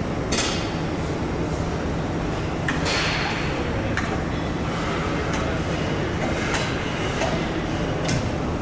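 Assembly-line factory noise: a steady machinery hum with scattered sharp metallic clicks and clanks from parts being handled at an electric-motor assembly station.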